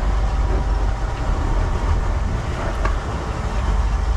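Steady low rumble of a sportfishing boat's engine, mixed with wind and water noise.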